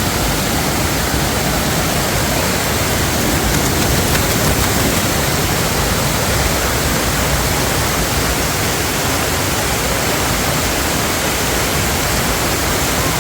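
Fast-flowing stream and waterfall rushing over rocks: a loud, steady rush of water.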